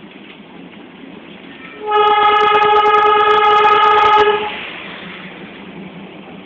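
Darjeeling Himalayan Railway locomotive sounding one steady whistle blast of about two and a half seconds, starting about two seconds in, over the steady running noise of the train.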